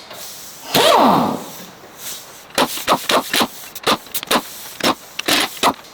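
Tool work on the flywheel bolts of a Ford 5.4L V8. A short sound about a second in slides down in pitch, then a string of sharp, uneven clicks and knocks follows as tools are set to the bolts.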